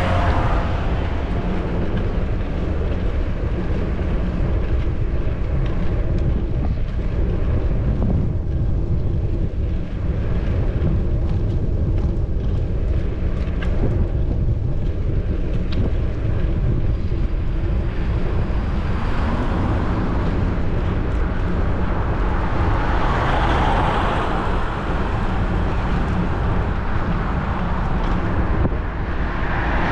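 Wind buffeting a bicycle-mounted GoPro's microphone while riding, a steady low rumble. Road traffic swells past about two-thirds of the way through and again near the end.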